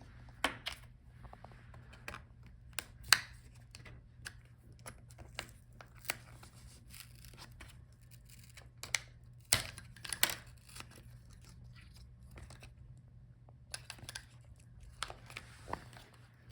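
Scattered light clicks, taps and crinkles of a laptop's small plastic speaker module and its cable being worked loose and handled, over a faint steady low hum.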